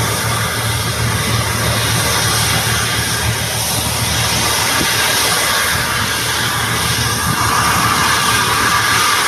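PD-35 high-bypass turbofan engine running steadily during a ground test, a dense even rush of noise. The middle of the sound grows slightly stronger over the last couple of seconds.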